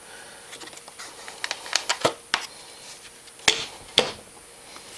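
Hard plastic body panel and push pins being worked by hand on an ATV frame: scattered light plastic clicks and taps, then two sharper knocks about three and a half and four seconds in, as a panel that won't line up is pushed and wiggled.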